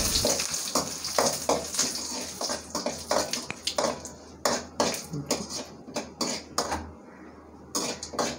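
Metal spoon scraping and clinking against an aluminium kadai in short, irregular strokes, stirring mustard seeds and chana dal in hot oil.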